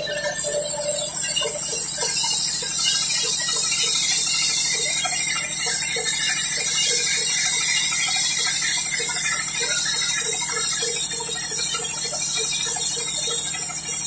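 Large sawmill band saw ripping a mahogany beam lengthwise: a steady high hiss of the blade cutting through the wood over the low hum of the machine, with a regular tick about two or three times a second.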